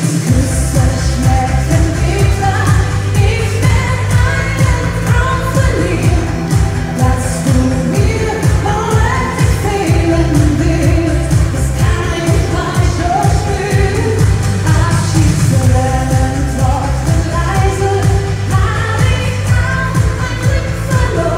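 Woman singing a Schlager pop song into a microphone over music with a steady dance beat, played loud through the stage PA speakers.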